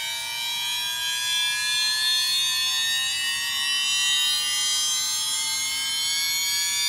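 Losi Promoto RC motorbike's stabilizer spinning up after being switched on: a whine of several tones rising slowly and steadily in pitch, like a jet starting up.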